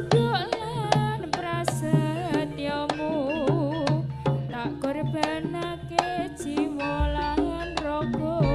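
Jaranan ensemble music: kendang hand drums struck in a quick rhythm under a wavering melody, with a deep bass coming in about seven seconds in.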